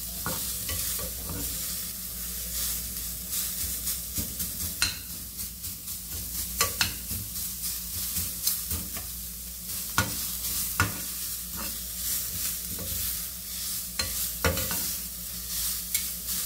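Shredded cabbage sizzling as it sautés in a frying pan, stirred and turned with two metal spoons that knock and scrape against the pan at irregular moments.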